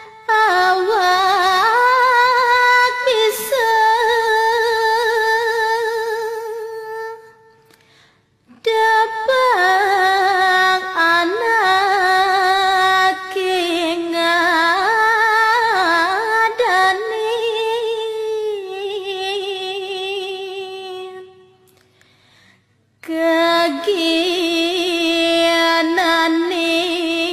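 A high solo voice singing slow, heavily ornamented long-held phrases with no other instrument, in three phrases broken by short pauses about eight and twenty-two seconds in.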